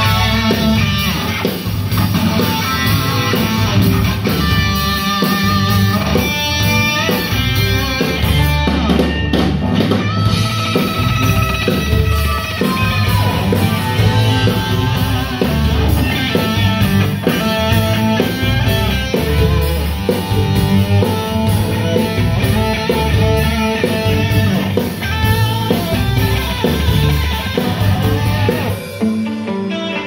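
Live rock band playing loud, with electric guitar over drums, bass and keyboards. There is a brief break in the music near the end.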